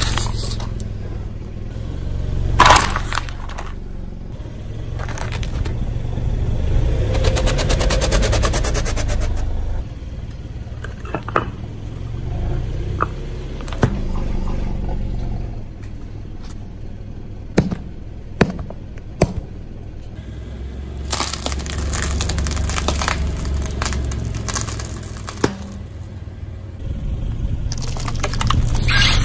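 Car tyres rolling slowly over objects and crushing them: a steady low rumble with sharp cracks and pops as things break, three in quick succession about two-thirds of the way in, and a run of rapid crackling about a quarter of the way in.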